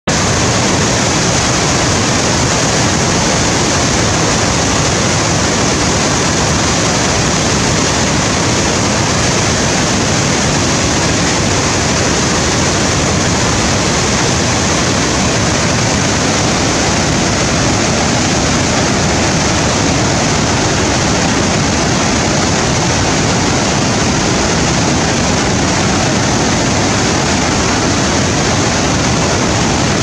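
The Rhine Falls, a large waterfall, with a big volume of white water pouring over rocks: a loud, steady rush of falling water that never lets up.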